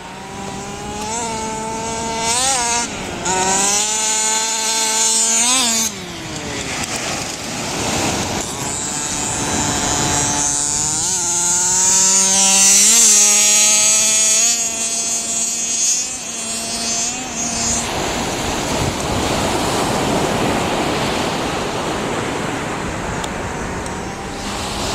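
Radio-controlled car motor whining, its pitch rising and falling with the throttle in repeated bursts, over a high hiss. After about eighteen seconds the motor fades and a steady rushing noise takes over.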